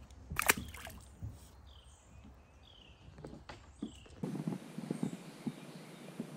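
A short splash about half a second in, typical of a released bass dropping back into the creek, then a bird's few short falling chirps. About two thirds of the way through the sound changes abruptly to running-water noise with soft knocks, like feet wading over creek rocks.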